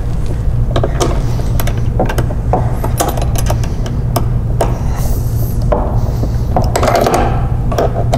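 A bolt being tightened with a socket wrench and an Allen wrench: irregular metal clicks and clinks of the tools on the bolt and steel bracket, with a small cluster of clicks near the end, over a steady low hum.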